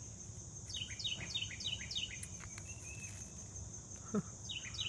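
A songbird singing a run of clear, downward-slurred whistled notes, about two or three a second, over a steady high drone of insects. A second run of notes comes near the end, and a short low sound about four seconds in.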